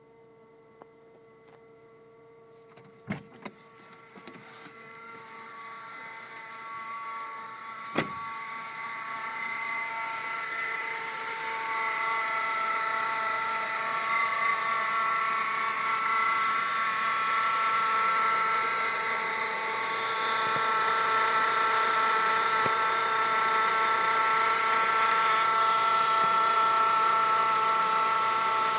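2008 Honda Civic LX's 1.8-litre four-cylinder running, its accessory drive belt and pulleys giving a steady whine made of several held tones. The whine grows louder over the first ten seconds or so, then holds steady, after a few sharp clicks near the start. The noise persists with a new belt and tensioner, and the owner thinks it comes from one of the pulleys.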